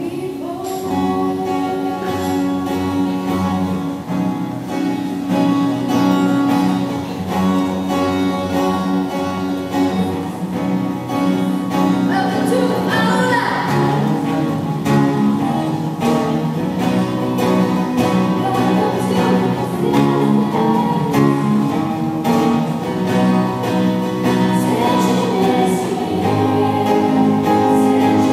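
Female vocal group singing in harmony, accompanied by guitar.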